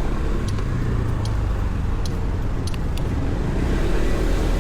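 Low, steady outdoor street rumble, with a few faint ticks scattered through it.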